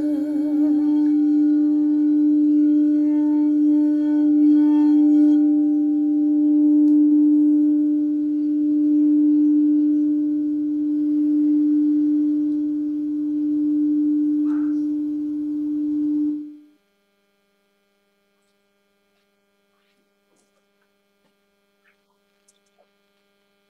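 Crystal singing bowl ringing one sustained note with a few faint overtones, its loudness slowly swelling and fading, while the last of a sung note dies away about a second in. The ringing cuts off suddenly about sixteen seconds in.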